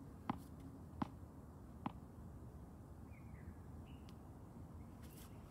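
Three sharp knocks of a tennis ball, about three-quarters of a second apart, then a short faint bird chirp about three seconds in.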